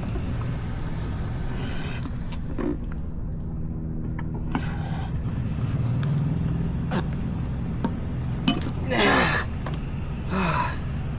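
A man straining with effortful breaths and grunts while forcing a tire onto a Onewheel wheel hub, with a few sharp clicks near the end, over a steady low hum.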